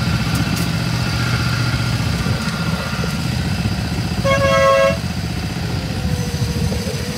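Light railway diesel train running with a steady low rumble; the locomotive's horn sounds once, briefly, about four seconds in.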